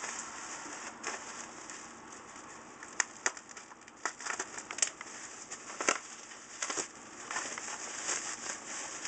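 Plastic bubble wrap crinkling and crackling as it is handled and unwrapped, with a few sharp snaps scattered through.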